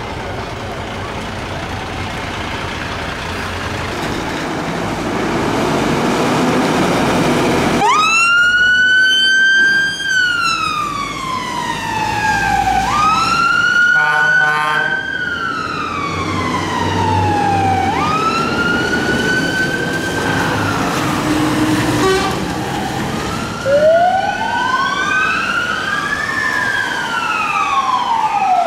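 Two fire engines turning out: a truck engine running and growing louder, then from about eight seconds in a siren wailing in long slow rising-and-falling sweeps, broken by a short rapid pulsing tone in the middle. Near the end a second siren joins, its sweeps crossing the first.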